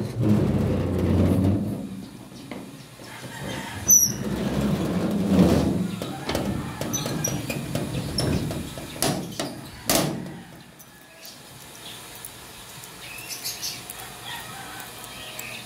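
A gate being opened by hand: rustling and handling noise, then several sharp clanks over the first ten seconds, with a brief high squeak about four seconds in.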